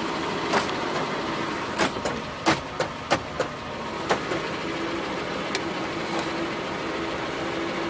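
Sharp clicks from the power window and door lock switches and lock on a 1983 Cadillac Seville's driver door, then a steady electric motor hum for the last few seconds, as a power window runs.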